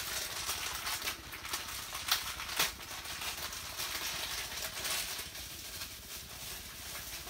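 Rustling and crinkling of packaging with scattered sharp clicks and taps, as a Funko Soda figure is unpacked from its can.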